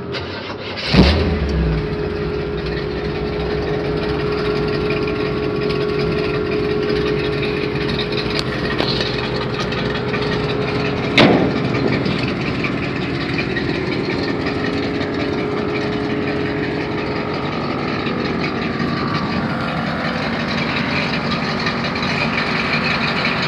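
Chevy 350 small-block V8 with a mild RV cam and turbo mufflers starting about a second in, then idling steadily. A single sharp bang about eleven seconds in.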